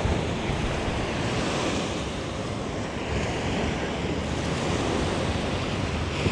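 Small waves washing onto a sandy beach, the wash swelling and easing, with wind rumbling on the microphone.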